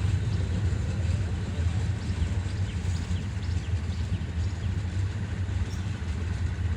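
Diesel train engine running steadily with a low, even rumble, with faint short chirps above it.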